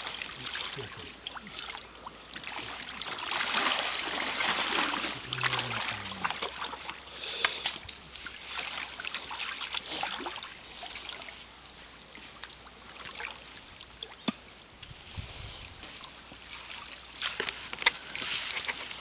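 Pond water splashing and sloshing in uneven surges, with scattered sharp clicks and knocks.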